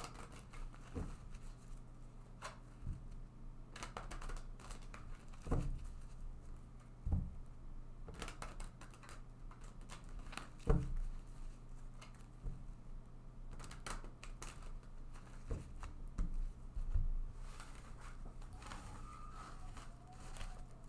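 A tarot deck being shuffled by hand: irregular soft slaps and clicks of cards against each other and the table.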